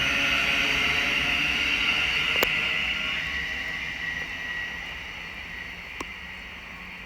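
Thameslink Class 700 electric multiple unit pulling away from the station, its running noise and steady electric whine fading as it goes. Two sharp clicks cut through, about two and a half and six seconds in.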